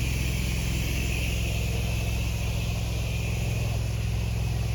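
Pressure washer's gas engine running steadily, with a steady hiss over it.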